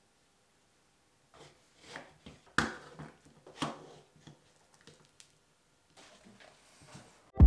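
Hand-handling sounds at a workbench: a few short wooden knocks as glued wood strips and a one-handed bar clamp are set down and pressed together, the loudest knock about two and a half seconds in, followed by fainter clicks as the clamp is squeezed tight.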